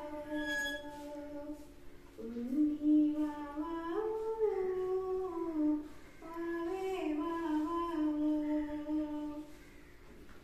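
A woman humming a slow melody, holding notes and gliding between them, in phrases with short pauses between.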